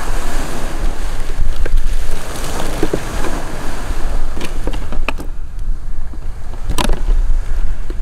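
Wind buffeting the microphone in a steady low rumble, with surf noise beneath. Ice bags and bottles are handled in a plastic cooler box, giving a few sharp knocks and clicks, the clearest about five and seven seconds in.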